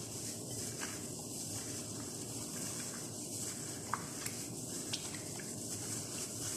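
Raw chicken breast being squeezed and mixed by a plastic-gloved hand in a glass bowl of wet marinade: continuous squelching and glove rustling, with a few light clicks.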